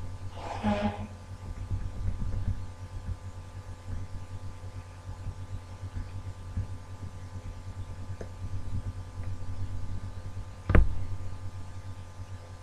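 Steady low background hum with faint steady tones above it. A brief soft rustle-like noise comes about half a second in, and a single sharp thump near the end is the loudest sound.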